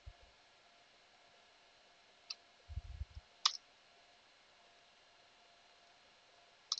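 A few faint computer key clicks with soft low thumps among them, about two and a half to three and a half seconds in; near silence otherwise.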